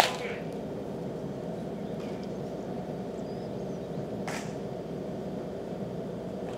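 Steady low background hum of a covered bullpen. At the very start a sharp leather pop as a fastball lands in the catcher's mitt, and about four seconds in a softer smack as the ball thrown back is caught in the pitcher's glove.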